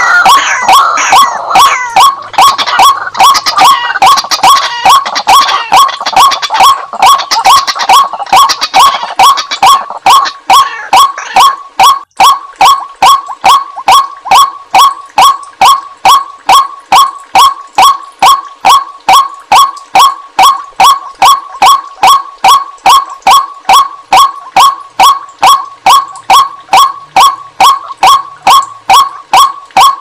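White-breasted waterhen calling, one short call repeated monotonously at about two and a half a second. For the first ten seconds or so the calls are rougher and overlapping, then they settle into a clean, even rhythm.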